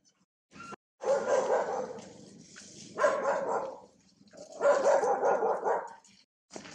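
Loud barking animal calls in three bursts, each lasting half a second to a second.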